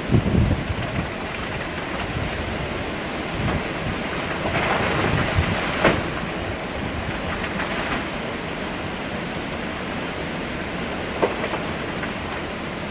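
Winter windstorm with heavy driving rain: a steady rush of rain and wind, low rumbling buffets in the first second and a stronger gust swelling about halfway through. A couple of sharp knocks cut through, the loudest near the middle and another near the end.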